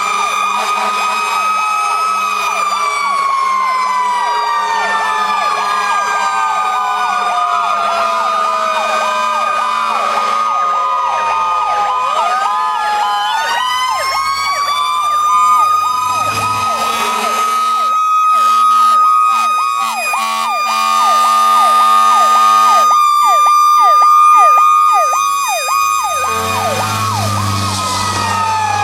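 Several fire-apparatus sirens sounding at once. Slow wails sweep up and down over one another, joined by a fast yelp. The sirens get louder as vehicles pass, about halfway through and again a few seconds before the end.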